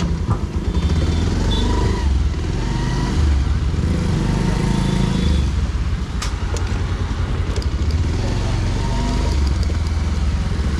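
Motorcycle engine running as the bike pulls away and rides off at low speed.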